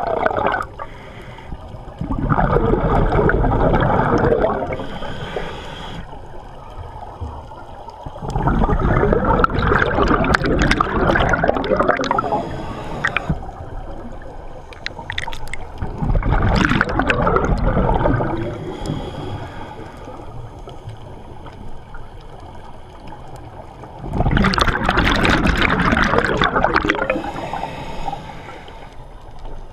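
Scuba regulator exhaust bubbles heard underwater: four long bubbling gushes as the diver breathes out, about every seven or eight seconds, with quieter stretches between breaths.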